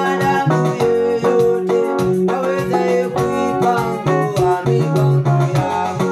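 Keyboard music: an electric keyboard playing chords and short melodic notes over held bass notes.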